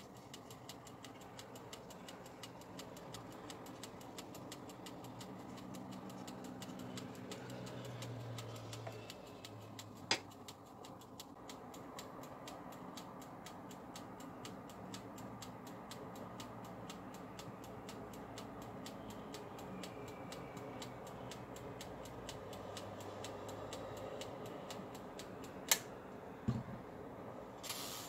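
Steady, fast mechanical ticking, about four ticks a second, over a faint low hum. Two sharp clicks stand out, one about ten seconds in and one near the end, followed by a soft knock.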